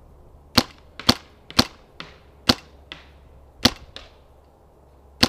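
Paintball marker firing single shots: about seven sharp pops at uneven intervals, between half a second and a second and a half apart.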